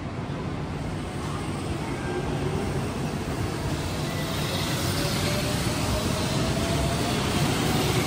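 Electric train running at the station, its rumble growing steadily louder, with a faint whine slowly rising in pitch.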